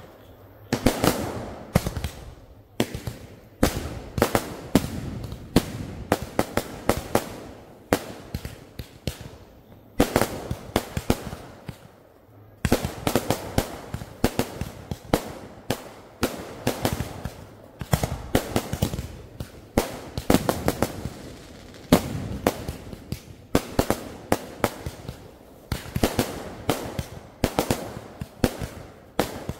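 Fireworks going off in rapid volleys: dozens of sharp bangs close together, with a brief lull a little before halfway.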